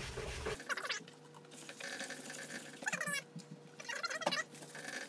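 Wet magic eraser (melamine foam) scrubbing a vinyl car door panel: short squeaky rubbing strokes about a second in, around three seconds and just after four seconds.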